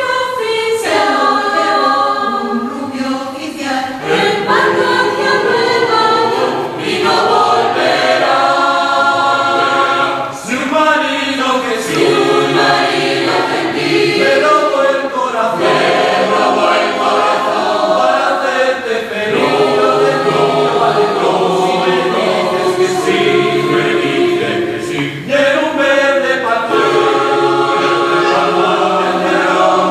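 Mixed choir of men's, women's and children's voices singing a habanera in parts. It is sung in long phrases, with short breaks between them about every six to nine seconds.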